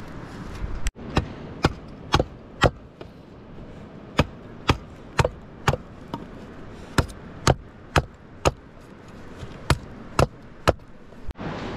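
Small hatchet chopping the end of a wooden pole, shaping it into a new shovel handle: about fifteen sharp blows in runs of three or four, roughly two a second, with wood chips flying.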